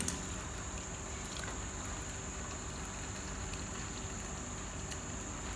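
Pot of thick soup simmering on a gas stove: a steady, low bubbling hiss, with a steady high cricket trill behind it and a few faint clicks.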